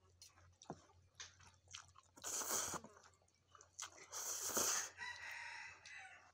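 Close-up mouth sounds of eating rice noodles: two loud slurps, about 2 and 4 seconds in, each under a second, with small wet clicks and chewing around them.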